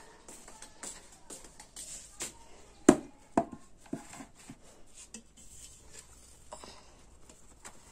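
Scattered light clicks, rustling and knocks of household things being handled close to the microphone, with two sharper knocks about three seconds in.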